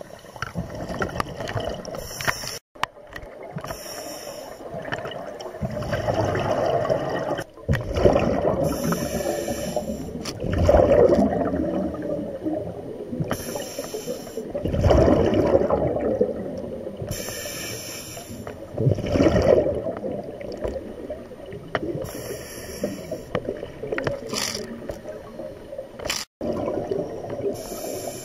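Scuba diver breathing through a regulator underwater: a hiss on each inhalation alternating with louder bursts of exhaled bubbles every few seconds.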